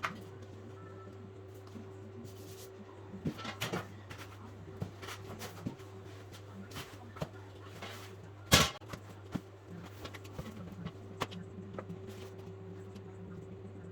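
Scattered clicks and light knocks of hand tools and paper being handled at the wall during wallpapering, with one sharper knock a little past the middle, over a steady low hum.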